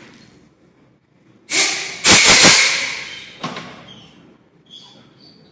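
A loud hiss of rushing air, starting about one and a half seconds in, strongest for about half a second, then dying away over a second or so.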